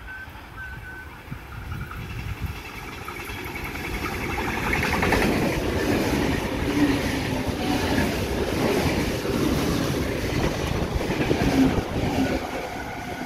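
Stainless-steel double-deck Sydney Trains electric train running through the platform. It grows louder over the first few seconds, then holds steady with a rapid clatter of wheels over the rail joints.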